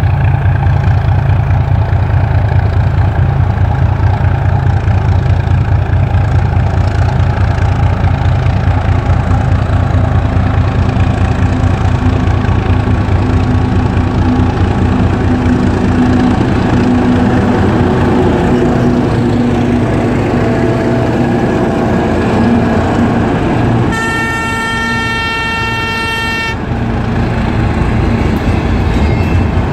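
ChME3 diesel shunting locomotive hauling a freight train, its six-cylinder diesel engine giving a loud, steady, throbbing low rumble as it approaches. About 24 seconds in it sounds its horn, one steady high note held for about two and a half seconds. Near the end the freight wagons roll past.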